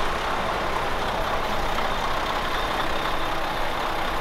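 Diesel railcars idling at a station platform: a steady engine noise with a faint high whine.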